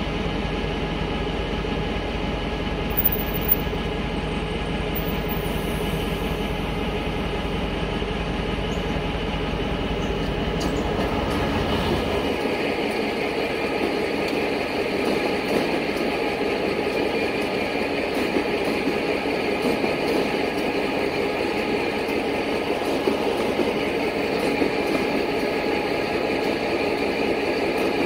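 Electric multiple-unit commuter train at a station platform. A steady low electrical hum is broken by two sharp clicks about three seconds in. From about twelve seconds in, the hum gives way to a louder running noise of the train moving alongside the platform.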